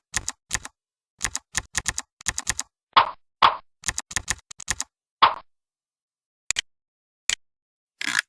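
Software-generated keyboard typing sound effects: quick runs of sharp clacking keystrokes with a few deeper, louder clicks mixed in. After a pause there are two lone clicks and a short scratchy burst near the end.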